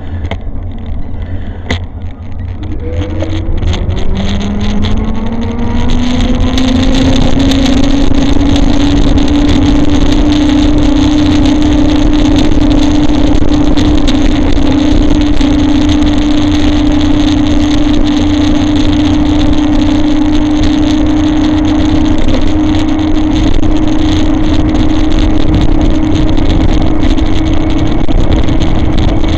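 E-bike motor whining as the bike picks up speed: the pitch rises over a few seconds, then holds steady at cruising speed. Wind rushes on the microphone underneath.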